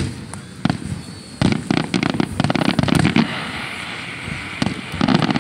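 Aerial fireworks display: shells bursting with sharp bangs, one at the start and another under a second in. About a second and a half in comes a rapid volley of bangs and crackle lasting nearly two seconds, and another volley near the end.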